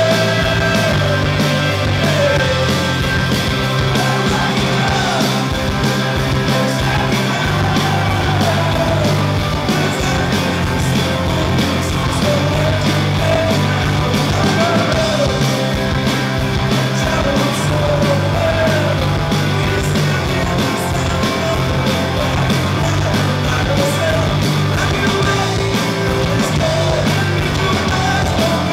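Punk rock band playing live at full volume: distorted electric guitars, bass and drums with a lead vocal sung over them.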